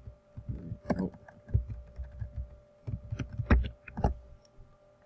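Computer keyboard being typed on: irregular keystroke clicks with dull thumps, in two clusters, about a second in and again around three to four seconds in. A faint steady electrical hum runs underneath.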